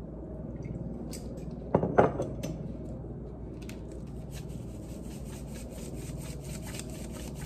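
A bottle set down on a tiled counter with a knock about two seconds in, then a salt shaker shaken over a bowl of shredded carrots: a quick dry rattle of salt, about four shakes a second.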